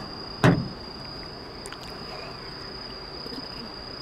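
Insects calling in one steady, high-pitched trill, with a single sharp knock about half a second in.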